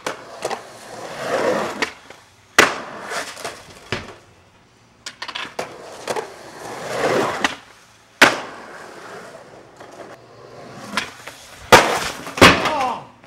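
Skateboard wheels rolling over smooth concrete, the rolling noise swelling as the board passes near and fading away. Several sharp clacks of the board popping and landing on the concrete break it, the loudest near the end.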